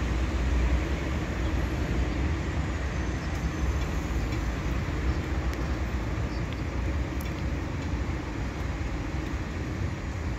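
A tram approaching from a distance along grass-covered track, under a steady low rumble of outdoor noise that slowly eases.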